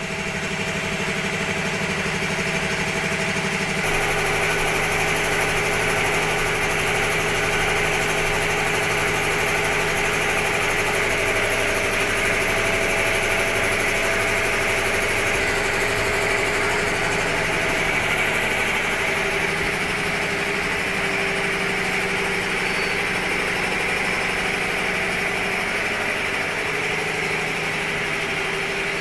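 A machine running steadily with an engine-like hum, holding a few steady tones that shift slightly in pitch a few times.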